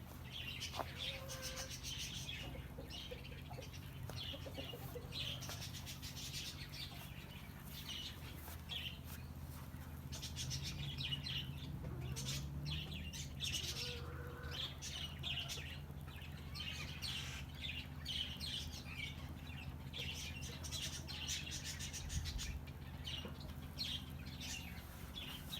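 Many small birds chirping and twittering in quick, overlapping calls, with a steady low hum underneath.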